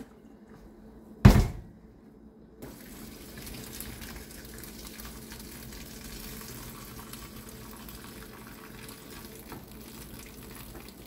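A single loud knock about a second in, then from about two and a half seconds a steady splashing of starchy cooking water being poured off boiled rice from a pot into a stainless-steel sink.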